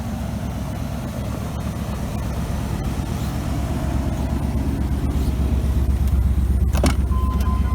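Truck driving, heard from inside the cab: a steady low engine and road rumble that grows a little louder. Near the end there is a sharp click, then a steady high beep.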